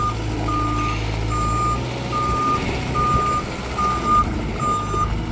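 Moffett M55.4 truck-mounted forklift's backup alarm beeping steadily at one pitch, a little more than once a second, while the machine travels in four-way mode. Under the beeps its Kubota diesel engine runs with a steady hum.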